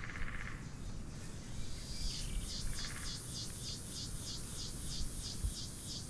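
Field insects chirping in a rhythmic high pulse, about four to five chirps a second, dropping out for the first couple of seconds and then resuming, with a short buzzing trill about two and a half seconds in, over a low outdoor rumble.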